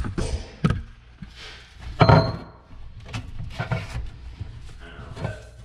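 Knocks and clatter of hand tools and metal pipe parts being handled, about six separate knocks. The loudest comes about two seconds in with a short metallic ring.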